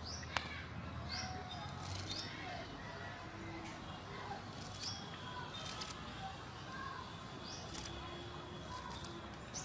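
Small birds chirping now and then in short rising calls, over a string of short crisp snips as a small knife cuts through coriander stems.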